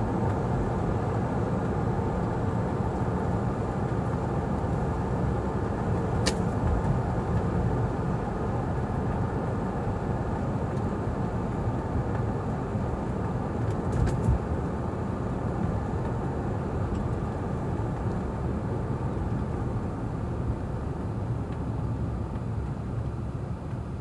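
Car driving along an old asphalt track, heard from inside the cabin: a steady rumble of tyres and engine, with a sharp click about six seconds in and a bump with a click about fourteen seconds in. The rumble eases a little near the end.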